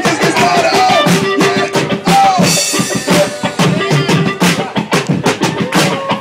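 Beatboxing through a microphone: a fast, steady run of mouth-made kick, snare and hi-hat sounds, with short sung swoops that rise and fall between the beats.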